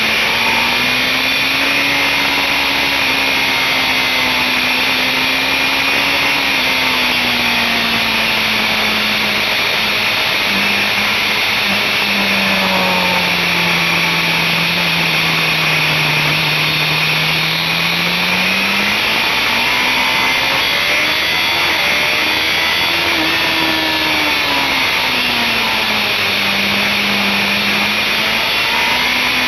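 BMW S1000RR's inline-four engine heard on board at track speed under a heavy rush of wind. Its pitch sinks low through the middle, climbs again, dips once more and rises near the end as the throttle is rolled off and opened.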